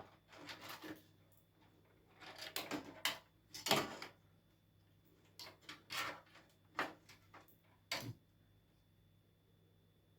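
Hands working on PC components: scattered clicks, knocks and scrapes of plastic and metal parts being handled and fitted, in short clusters that stop after about eight seconds.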